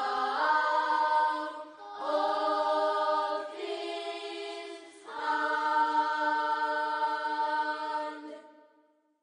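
Soundtrack music of wordless choir-like voices holding sustained chords in three long phrases, the last one fading out to silence near the end.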